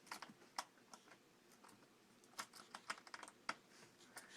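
Faint, irregular small clicks and ticks of a screwdriver driving small screws into a laptop's plastic screen bezel.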